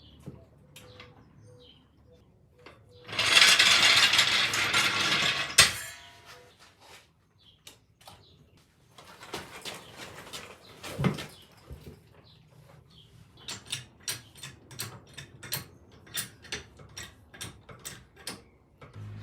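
Tool work on a quad bike's front wheel: a loud rasping noise lasting about three seconds, then scattered clicks and a long run of sharp ratchet clicks, about two or three a second, near the end.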